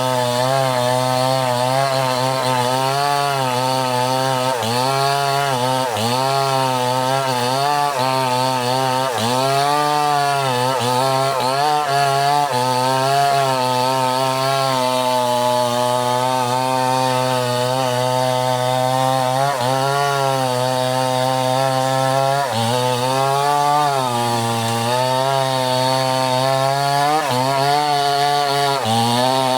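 Chainsaw running steadily and cutting wood, its engine pitch sagging and picking up again every few seconds as the chain takes the load.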